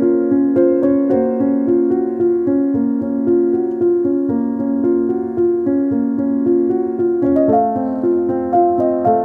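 Background piano music: a gentle melody of steady notes, moving higher about seven and a half seconds in.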